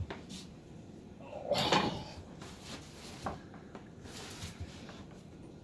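Welded-steel rock tumbler frame being set down and moved on a wooden workbench: a scrape about a second and a half in, then a few soft knocks and rustles.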